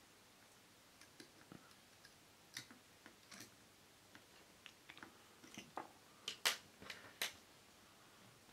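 Faint clicks and light taps of pliers working a steel bicycle spoke as it is bent into shape, with a few sharper clicks near the end.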